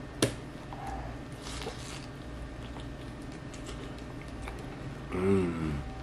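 A bite into a tuna, onion and pickle wrap, with one sharp crunch just after the start, then chewing with a few faint crunches. Near the end a short hummed voice sound from the eater.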